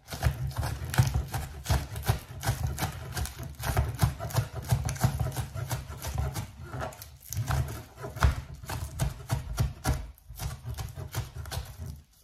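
Kitchen knife chopping spring onions on a plastic cutting board: a quick, steady run of knocks, several a second, with a couple of short pauses.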